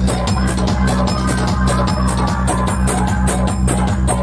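Loud DJ dance music played through a large outdoor PA sound system, with heavy bass and a fast, driving drum beat.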